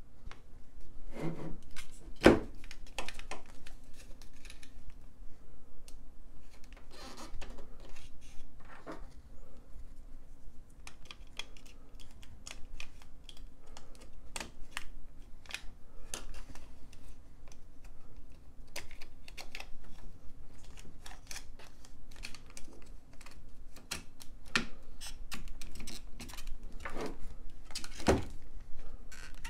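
Hands working sealed lead-acid battery cases and insulated spade connectors: a steady run of small plastic clicks and taps as the cables are pushed onto the terminals. There is a louder knock about two seconds in and another near the end as the battery cases are set down and pressed together.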